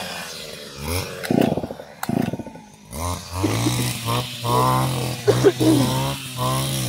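A person's voice, talking or singing, over a steady low drone that sets in about three seconds in.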